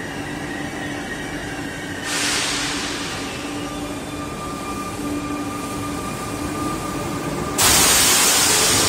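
GTT Minuetto train moving through an underground station, with a steady running rumble and motor whine. A sudden loud hiss breaks in about two seconds in and fades, and a louder one starts near the end.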